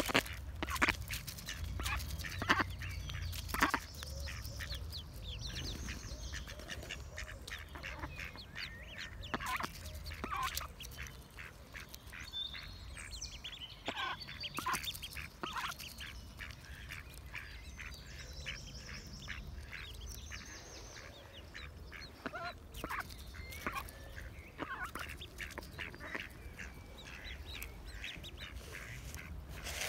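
Mallard hen and ducklings pecking at seed: a rapid, irregular patter of bill clicks and taps on grain, in a hand and on the ground, with high thin peeps from the ducklings now and then.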